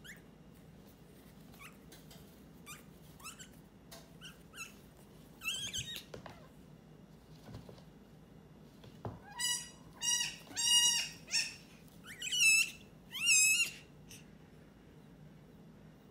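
Premature goat kid bleating in thin, high-pitched, squeaky cries: faint and scattered at first, then a run of about six louder bleats in the second half.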